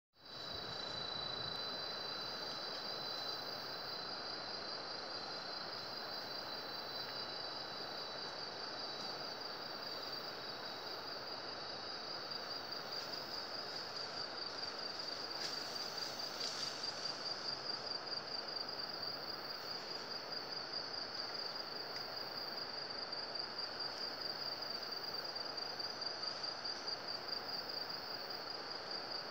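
Steady, high-pitched chorus of rainforest insects, a fast pulsing buzz that runs without a break. A second, thinner insect tone beneath it fades out about ten seconds in.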